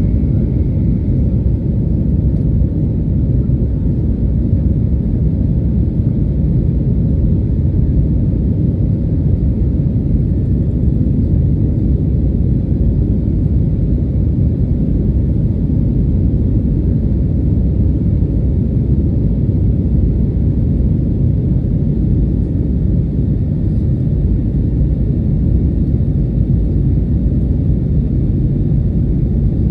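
Cabin noise of an Airbus A320neo in flight just after takeoff, heard from a window seat over the wing: a steady, loud, low rumble of engines and rushing air, with a faint thin tone above it.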